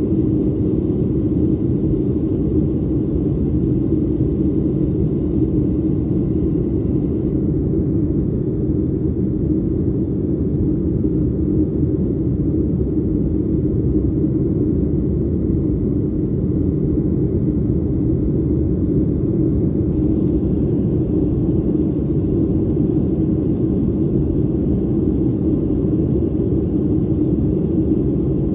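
Steady cabin noise of an airliner in its climb after takeoff: an even, unbroken rumble of engines and airflow heard inside the passenger cabin.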